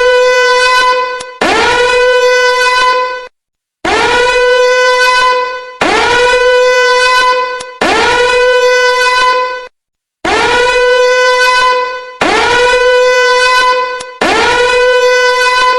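Danger warning alarm: a loud, harsh horn-like tone that swoops up quickly, then holds steady for about two seconds. It repeats in sets of three, with a half-second break between sets.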